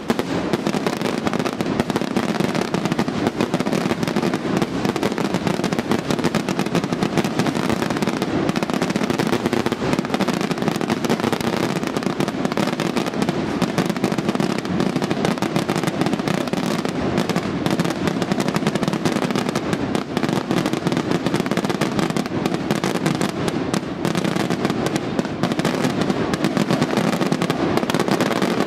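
Daytime fireworks display: a dense, unbroken barrage of bangs and crackling that keeps up without a pause.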